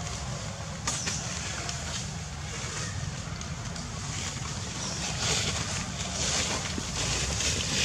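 Steady wind rumble buffeting the microphone over an even outdoor hiss, with a few short soft taps and rustles, one about a second in and more in the second half.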